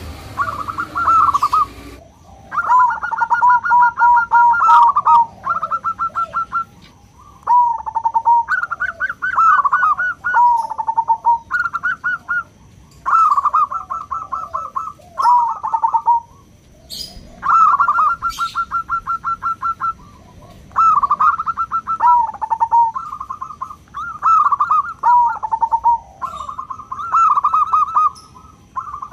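Local zebra dove (perkutut) singing: phrase after phrase of rapid trilled cooing, many ending on lower notes, with short pauses between phrases.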